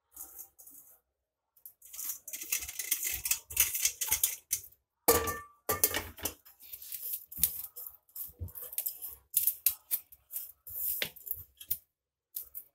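A hand mixing chopped fenugreek leaves into flour in a metal bowl: irregular rustling and scraping of fingers against the bowl, with a short ringing metal clink about five seconds in.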